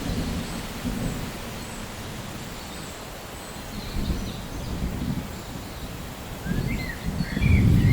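Steady rain with low rolling thunder that swells and fades a few times and builds to its loudest near the end. A few short chirps, from a bird, come shortly before the end.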